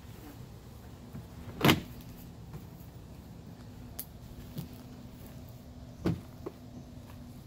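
Hollow plastic knocks and clunks from a children's ride-on toy car as its door and seat parts are handled and shut, with two loud thuds, one under two seconds in and one about six seconds in, and a few lighter clicks between them.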